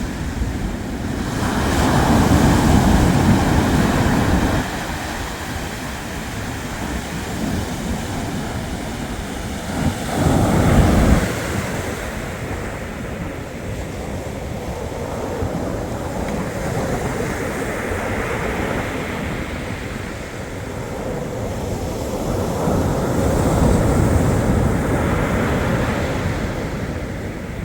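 Black Sea waves washing onto the shore. A wave surges about two seconds in, a short one breaks around ten seconds, and a longer swell builds near the end.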